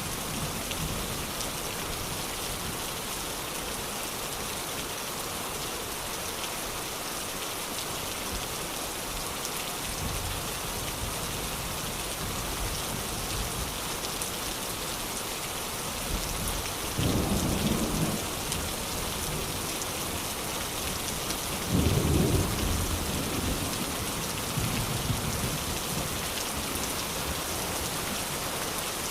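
Steady rain falling on surfaces, with two short low rumbles of thunder about two-thirds of the way through.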